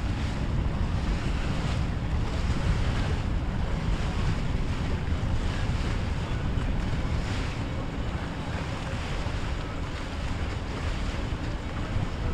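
A Formula cabin cruiser with outboard motors passing close by at low speed: the steady run of its engines and the wash of water along the hull, under heavy wind noise on the microphone.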